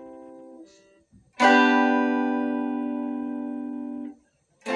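Guitar chords played clean through a Boss GT-100 effects processor. A chord fades and stops abruptly about a second in; a new chord is struck about a second and a half in, rings for nearly three seconds and stops abruptly; another is struck at the very end. The sound hold effect is on but not holding, so each chord dies away as normal.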